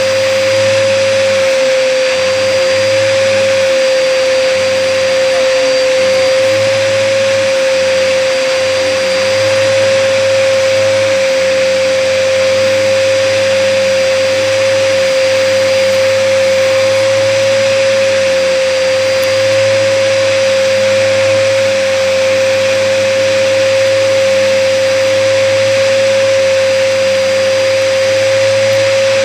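Hoover vacuum cleaner running steadily with a strong, steady high whine. The vacuum is clogged, left uncleared by its user.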